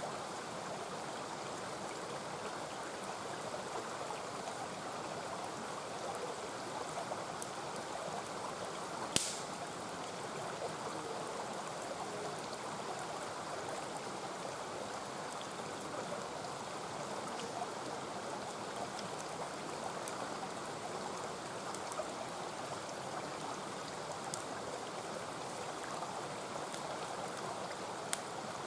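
Mountain stream rushing steadily, with a few sharp crackles from the wood fire. The loudest pop comes about nine seconds in.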